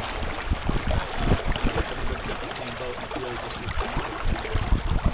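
Water rushing and splashing along a small sailboat's hull under way close-hauled, with irregular low thumps of wind buffeting the microphone.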